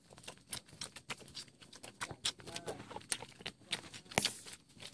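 Two puppies suckling from their mother dog: irregular wet smacking and sucking clicks, with one sharper click about four seconds in.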